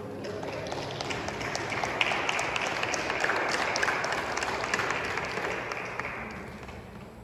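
Congregation applauding: dense clapping that builds about a second in, holds, and dies away near the end.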